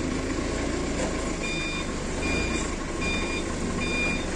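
Forklift reversing alarm beeping, a short high beep repeating a little more than once a second, starting about a second and a half in, over the steady hum of the forklift's engine as it backs away carrying a load.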